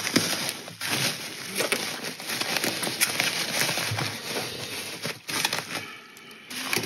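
Bubble wrap crinkling and rustling as it is pulled back and unwrapped by hand, with many small crackles; it eases off briefly near the end.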